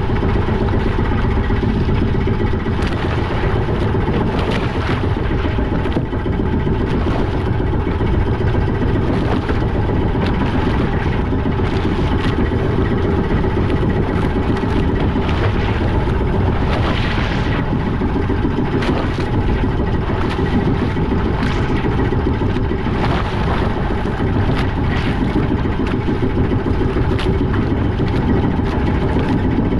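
Fishing boat's engine running steadily, a continuous low rumble with scattered short knocks or clatters over it.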